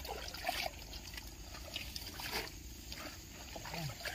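Water splashing and sloshing in irregular bursts, loudest about half a second in and again around two and a half seconds, as a small wooden boat is pushed through thick water lilies.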